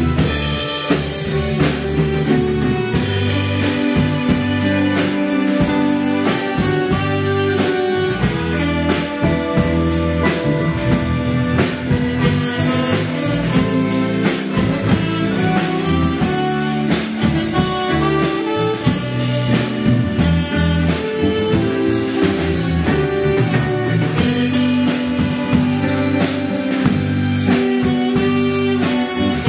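Live band playing an instrumental passage: electric bass, drum kit, electric guitar and saxophone, with a steady beat.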